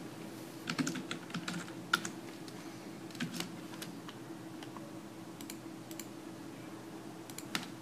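Computer keyboard typing: a quick run of keystrokes about a second in, then a few scattered single clicks, over a low steady hum.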